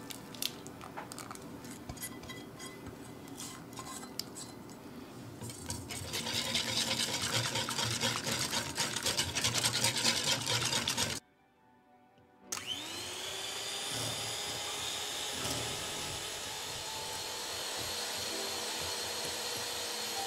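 Hot sugar syrup poured into a glass bowl of softened gelatin, then a wire balloon whisk scraping fast and rhythmically around the glass. After a short silent break an electric hand mixer starts up, its whine rising and then running steadily as it beats the marshmallow mixture.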